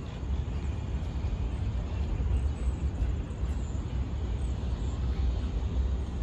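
Wind buffeting the microphone, a low, fluttering rumble over a faint, even outdoor background hiss.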